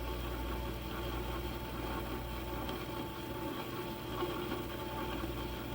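Metal lathe running with its spindle turning at about 200 RPM, giving a steady mechanical hum with a thin constant whine over it.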